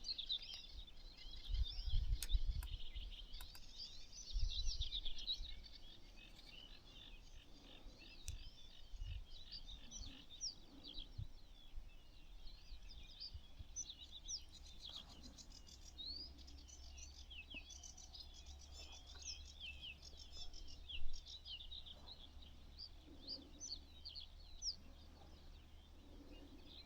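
Many small songbirds chirping and trilling at once in a dense, continuous chorus. A few low bumps in the first five seconds and one short louder sound about two-thirds of the way through.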